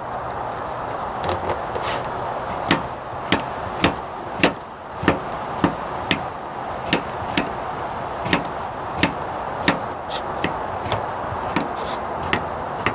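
Potatoes being peeled with a knife: a crisp click with each stroke, repeating about every half second to second, over a steady background hiss.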